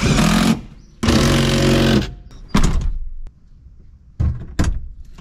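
Cordless drill-driver running in three short bursts, driving in the bolts of a bucket seat's mounting rails, followed by two light knocks.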